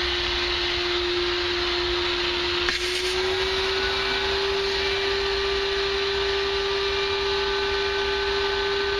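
Small shop vac running steadily with a whine, sucking the air out of a vacuum bag through its valve to form the vacuum. About three seconds in, a click as the hose goes onto the bag's valve, and the whine rises a little in pitch.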